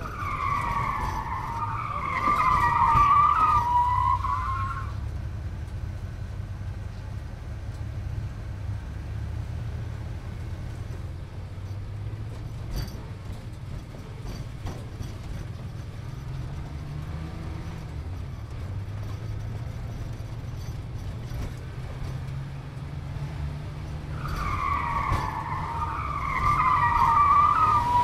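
A car tire-squeal sound effect, a wavering high squeal of a few seconds, heard at the start and again near the end over a steady low rumble.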